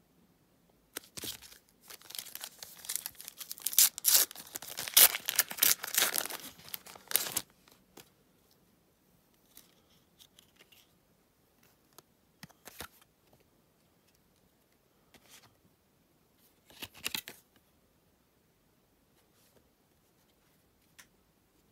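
A Topps Bundesliga trading card pack's foil wrapper being torn open, with several seconds of loud crinkly tearing and crackling. Then soft, scattered rustles and clicks as the stack of cards is handled, and one short crinkle later on.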